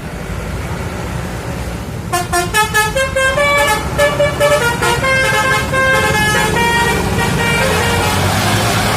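A multi-tone 'basuri' telolet horn starts about two seconds in and plays a quick tune of changing notes, then holds longer notes. A vehicle engine runs underneath throughout, and a rushing noise builds near the end.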